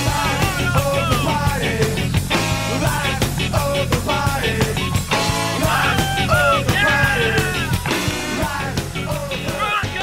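Rock music with a steady drum beat and a melodic lead that bends in pitch.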